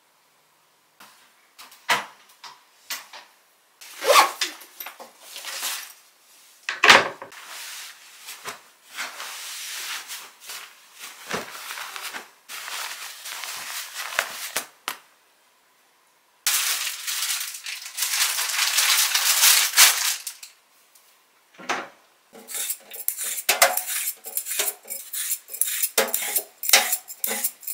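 A string of household handling sounds: scattered knocks and clinks, a few seconds of cloth rustling as a pillow is handled, then near the end a vegetable peeler scraping down a carrot in quick repeated strokes.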